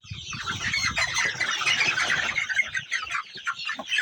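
Chickens clucking and squawking, many short calls overlapping, with some low rumbling noise in the first second or so.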